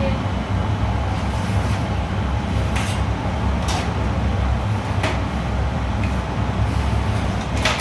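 Steady low rumble of commercial kitchen equipment running, with a few sharp clinks of plates set down and picked up on a stainless steel pass.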